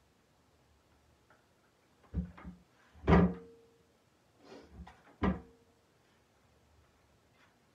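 A handful of knocks and clunks from craft items being handled and set down on a work counter. The two loudest, about three and five seconds in, each leave a brief ringing.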